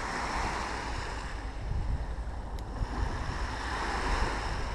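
Small waves breaking and washing over a shingle beach, the wash swelling and easing, with wind rumbling on the microphone.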